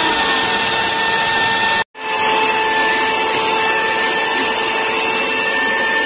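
Electric hand mixer running at a steady speed, its wire beaters whisking egg batter in a metal pot: a steady motor whine with a hiss of beaters in the batter. The sound cuts out completely for a split second a little under two seconds in, then carries on unchanged.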